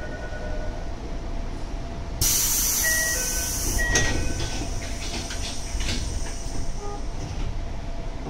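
Tokyo Metro 8000 series train's pneumatic sliding doors closing. A loud, sudden blast of air hiss, the 'bomb door' noise, sets in about two seconds in. Door chime beeps sound over it, and the doors shut with a knock about four seconds in, followed by a few small clicks, all over a steady low train hum.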